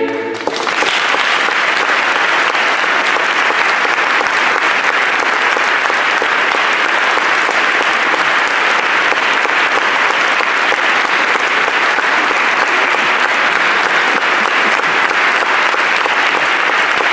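A mixed choir's held chord cuts off and, about half a second in, a large audience breaks into steady, sustained applause.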